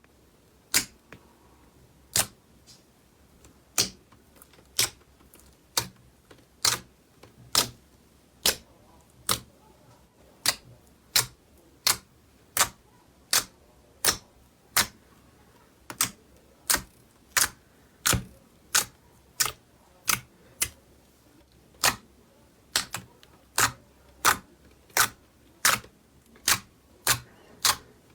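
Slime being pressed and poked, giving a steady run of sharp clicking pops, about three every two seconds.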